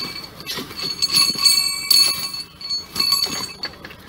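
Spike mauls striking steel rail spikes as a track crew drives them into the ties. Several sharp metal-on-metal blows in an uneven rhythm, each leaving a high ringing, die away near the end.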